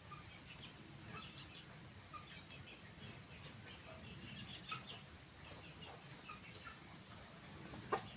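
Chickens clucking and calling in short, scattered notes over a low steady background rumble, with one sharp click near the end.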